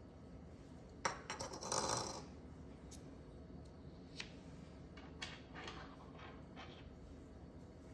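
Light clicks and rattles of the Nest Cam's plastic housing parts being handled and set down on a desk, with a short cluster of clattering about a second in, then a few separate soft ticks.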